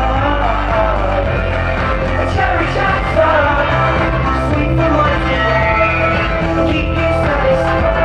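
Four-man vocal group singing live into handheld microphones over a loud pop track with a steady bass beat, amplified through the stage PA.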